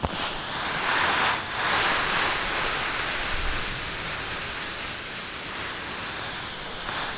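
Air rushing out of the open deflate valve of a Zempire Monstamat self-inflating camping mattress as it is folded and pressed down under body weight. A steady hiss, loudest a second or two in and slowly easing off.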